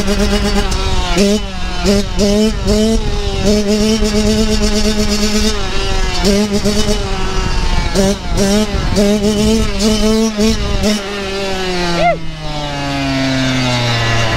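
Kawasaki dirt bike engine running on the street. The revs rise in repeated short bursts and hold steady in between, then fall away steadily over the last few seconds as the throttle is rolled off.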